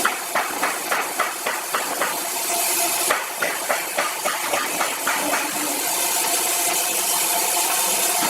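A machine running steadily, with a quick run of sharp knocks about three a second that stops about five and a half seconds in.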